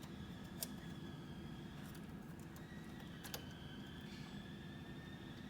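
A few faint, sharp clicks, a second or more apart, of earth-link wires and connectors being fitted in an electronics rack, over a low steady hum.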